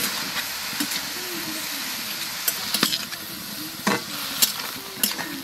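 Chopped leafy greens sizzling in a steel kadai as they are stir-fried with a long metal spatula, which scrapes and clinks against the pan several times in the second half.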